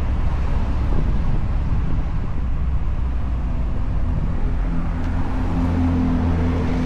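A car driving, with a steady low rumble of engine and road noise. About halfway through, a steady engine note joins it.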